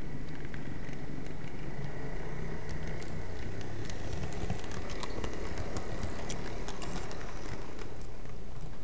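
HO scale model train running on the track, heard close up: a steady rumble with a faint steady whine and many scattered light clicks.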